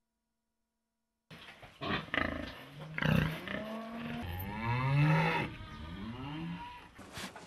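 Farm animals calling, a pig and cattle: a few short cries start about a second and a half in, then a long call around the middle whose pitch slides downward, and a shorter falling call after it, like cattle lowing.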